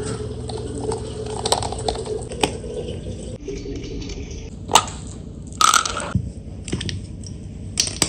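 Scattered sharp knocks and clinks over a steady hum that cuts off about three seconds in.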